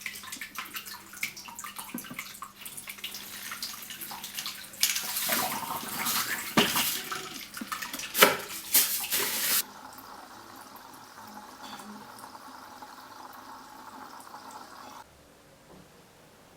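Water running and splashing, with a louder burst of splashing in the middle that cuts off suddenly, followed by a quieter steady hiss.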